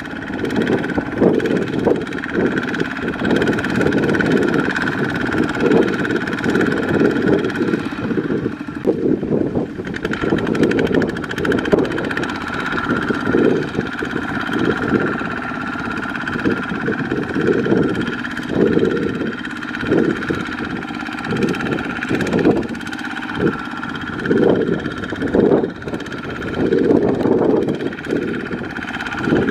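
Kubota ZT155 single-cylinder diesel on a two-wheel walking tractor, chugging steadily under load as it hauls a loaded trailer through mud. It gets louder and softer in turns.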